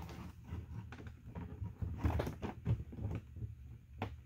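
Light clicks, scrapes and knocks of a 3D-printed plastic hive frame being handled as a foundation sheet is slid into its groove, with a sharper knock about four seconds in.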